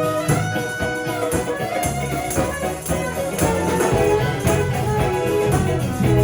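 A live band playing a song, with regular drum hits, a strong bass line and sustained melody notes over them.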